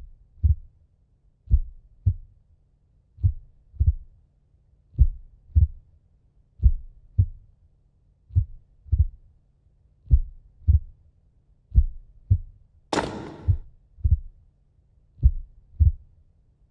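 Slow heartbeat sound effect: low, paired lub-dub thuds about every 1.7 seconds over a faint low hum, with a brief hiss about 13 seconds in.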